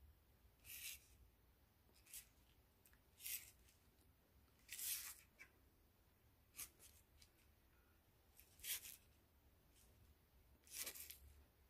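Faint scratching of a fine-tipped brush drawing thin vein lines on watercolour paper: about seven short strokes, a second or two apart, over near silence.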